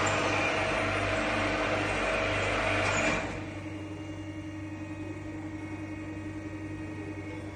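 Metal-cutting band saw running: a loud, dense machine noise for about the first three seconds, which then drops suddenly to a quieter, steady hum.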